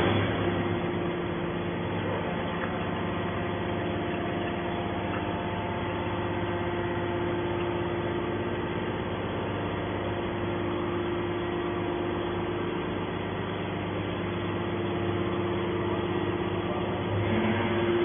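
Hydraulic scrap-metal baler's power unit running with a steady hum and a held tone as the ejector cylinder slowly pushes a compressed bale of scrap metal out of the press box.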